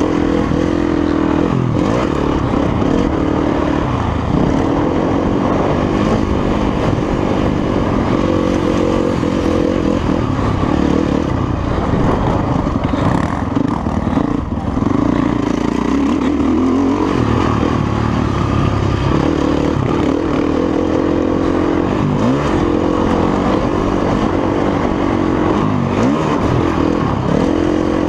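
Motocross bike engine heard from on board, revving up and dropping back over and over as it is ridden hard around a dirt track.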